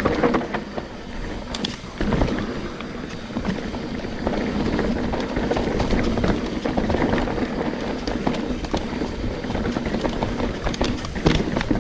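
Trek Slash 9.8 mountain bike riding fast down a dirt singletrack: tyres rolling over dirt, with a steady buzz and scattered knocks and rattles from the bike as it crosses bumps.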